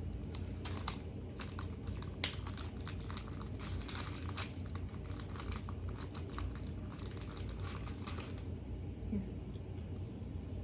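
Plastic snack packaging (a Pretz pretzel-stick pack) crinkling and tearing as it is opened. A run of quick crackles and rustles thins out near the end.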